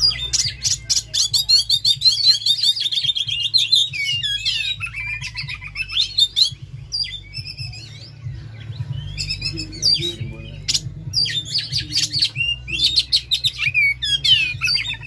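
Oriental magpie-robin singing a fast, varied song of chirps, whistles and trills. It thins to scattered notes in the middle, then turns dense again near the end.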